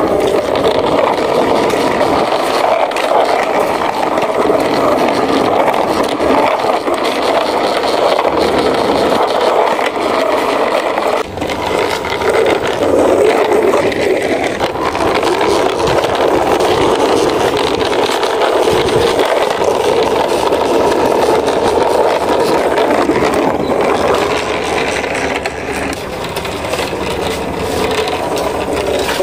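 Plastic wheels of a hand-pushed toy articulated bus rolling along a rough concrete wall top: a steady rolling rumble and rattle.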